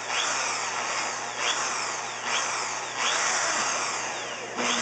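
Corded electric drill boring into a plastic bottle cap, the trigger squeezed in short bursts about five times. Each burst speeds up quickly, then the whine falls away as the motor winds down.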